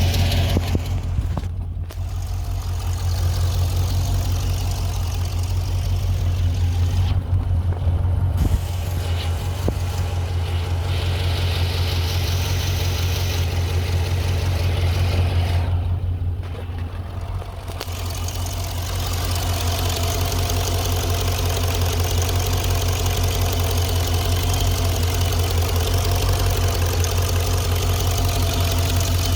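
2015 Dodge Challenger SRT 392's 6.4-litre Hemi V8 idling steadily with a tick that the owner suspects is the "Hemi tick", bad lifters and camshaft, or broken exhaust manifold bolts.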